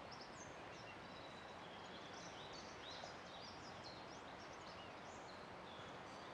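Faint songbirds chirping and whistling in quick, scattered short notes over a steady low rush of the flowing river.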